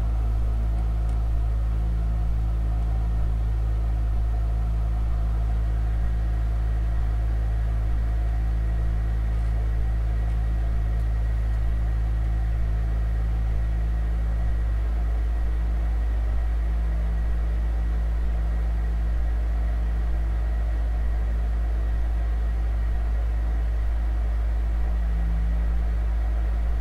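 Steady deep organ drone with several held tones above it, blended with a low rumble from a field recording. It stays at the same loudness throughout, and one of the low tones thins out about halfway through.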